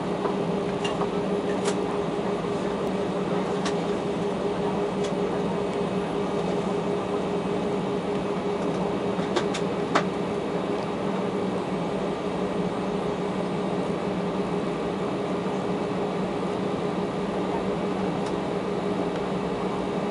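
Steady cabin hum inside an Airbus A319 as it taxis, with the engines at low power: a low drone with a higher steady tone above it. A few light clicks sound over it.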